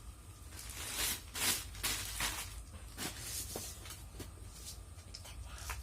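Rustling and light knocking of grocery packages being handled and set down: a string of short scrapes and taps.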